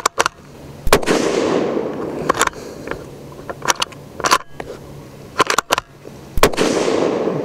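Two shots from a Ruger American Predator Gen 2 bolt-action rifle in .223 Remington with its factory radial muzzle brake, about five and a half seconds apart, each with a long fading echo. Between them come short metallic clicks as the bolt is cycled to chamber the next round.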